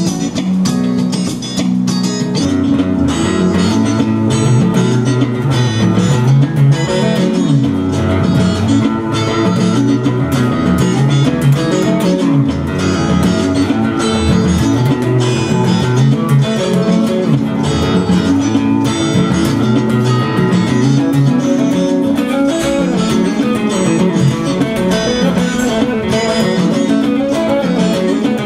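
Blues guitar instrumental played on a capoed acoustic guitar and a Fender Stratocaster electric guitar.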